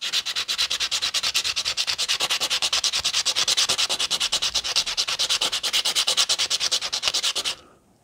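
A small wooden model part being rubbed back and forth on a hand sanding block to take a little off its top edge. It makes a fast, even run of scratchy strokes, several a second, and stops shortly before the end.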